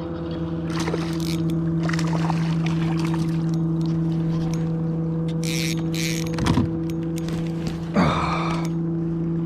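A boat motor running at a steady pitch, an even hum that holds without change. Over it there are a few short splashing or rustling sounds and a low knock about six and a half seconds in.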